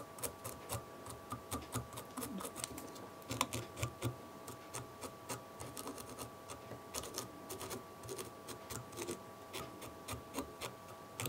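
A dubbing brush being raked through the hackle fibres of a fly held in a vise: a run of faint, irregular scratches and clicks, over a faint steady hum.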